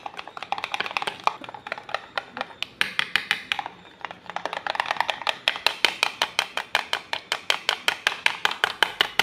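A spoon beating thick gram-flour batter in a bowl, clicking against the bowl in quick strokes that settle into a steady rhythm of about six a second about halfway through.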